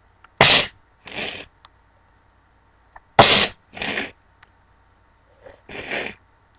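A woman sneezing in a quick series: a loud sneeze with a softer one just after, the same again about three seconds later, and a last sneeze near the end.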